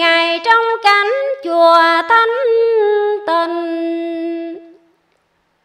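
A woman's voice singing a slow, drawn-out line of a Vietnamese tân cổ song, long held notes with small slides between them, with no clear accompaniment; it stops a little under five seconds in.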